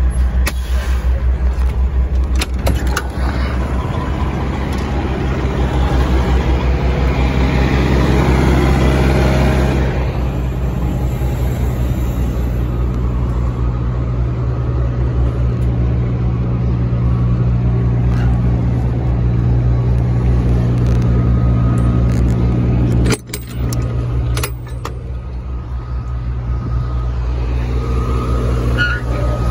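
Diesel semi truck engine running with a steady low drone, briefly cut off about three-quarters of the way through.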